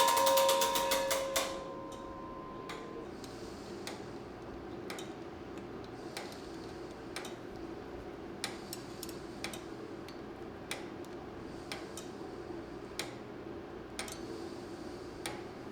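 Restored 1913 J. Smith and Sons tower clock: the chime bell's last strike rings and fades over the first second or two along with a rapid clatter of the striking mechanism, then the clock's escapement ticks about once a second.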